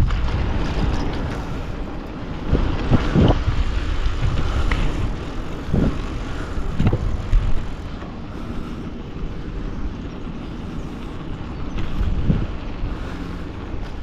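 Wind rushing over a GoPro's microphone while riding a bicycle, with a steady rumble and a few sharp knocks along the way.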